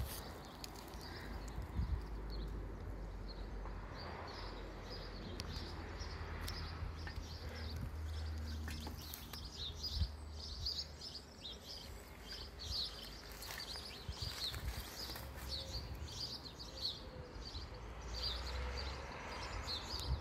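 Small birds chirping and twittering over and over, with a low outdoor rumble underneath that swells now and then.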